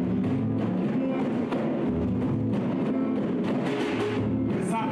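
Live Garifuna ensemble music: acoustic guitar strummed over a steady rhythm on congas, with keyboard. A voice comes in singing near the end.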